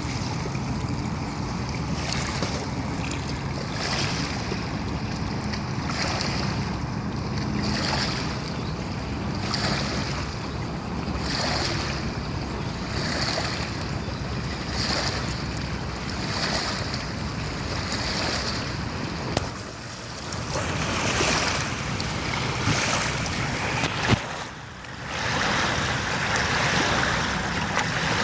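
River water from a boat's wake washing in over the rocks of the bank in regular surges about every two seconds, with a steady wash near the end. There are two sharp knocks in the second half.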